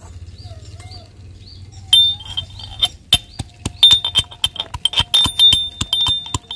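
Metal pestle pounding garlic cloves in a small metal mortar: a quick run of sharp clinks, several a second, each with a brief metallic ring, starting about two seconds in.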